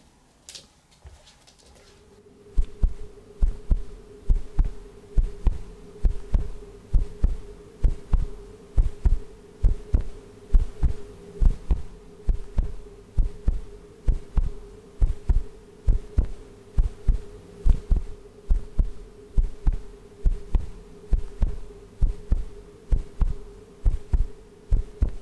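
Heartbeat sound effect: regular low thumps in close lub-dub pairs that start about two and a half seconds in, over a steady humming drone.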